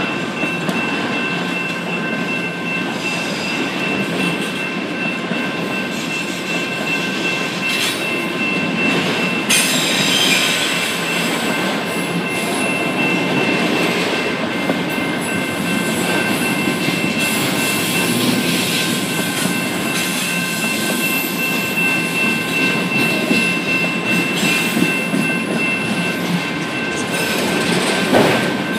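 Freight train of autorack cars rolling past close by: a steady rumble and rattle of steel wheels on the rails, with a thin, steady high-pitched wheel squeal running through it.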